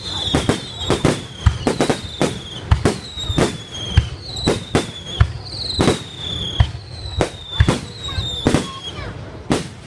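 Fireworks going off in a rapid series of sharp bangs, about two a second. Falling whistles are heard between them throughout.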